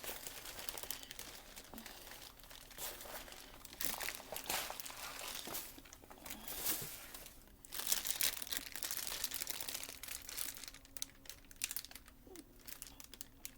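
Irregular crinkling and rustling of packaging as a tripod's carrying bag is handled.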